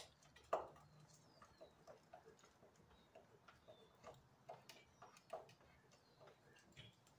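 Faint, irregular light clicks and taps, about two a second, of small metal turbojet engine parts, including a bladed stator ring, being handled and set on a wooden shelf. The loudest tap comes about half a second in.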